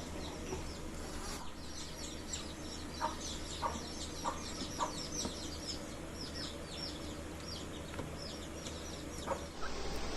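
Birds chirping: a steady run of many short, high chirps that drop in pitch, with a few soft clucks or taps between about three and five seconds in, over a low steady hum.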